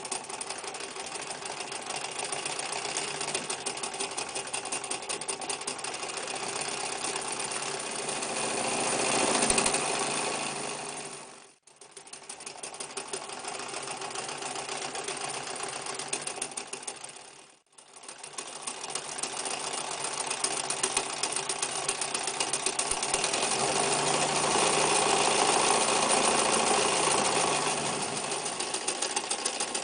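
Necchi Lycia electric sewing machine running and stitching at a fast, steady clatter. It cuts out abruptly twice, near the middle, for well under a second each time, then runs on, louder for a while near the end.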